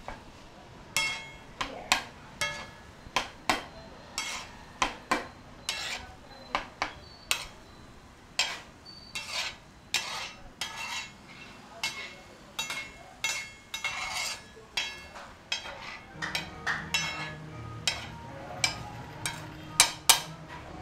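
Metal spatula clanking and scraping on a large flat metal griddle as a heap of atho noodles is stirred and tossed, about two ringing strikes a second. A low steady hum joins in about three quarters of the way through.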